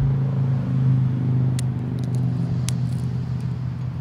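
Steady low machine hum, swelling slightly about a second in and then slowly easing, with a couple of faint clicks.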